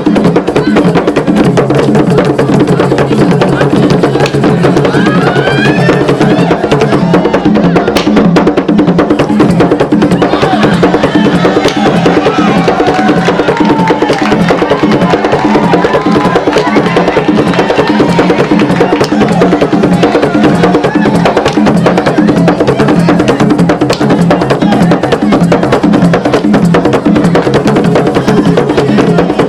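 Traditional African drumming: fast, dense percussion with a sharp wood-block-like click over deeper drums, playing steadily and without a break.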